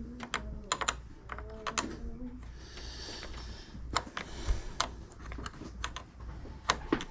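Irregular sharp clicks and taps of hands working plastic car-interior parts around a light switch.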